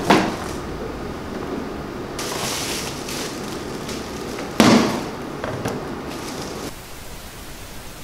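Cardboard packaging and bubble wrap being handled: rustling and crackling plastic with two sharp knocks, one at the start and one about halfway through. It goes quieter near the end.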